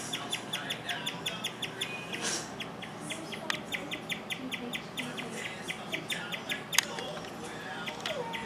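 Guinea pig chirping: a fast, even series of short, high, bird-like chirps, about five a second, with a few short breaks. A single sharp click comes about seven seconds in.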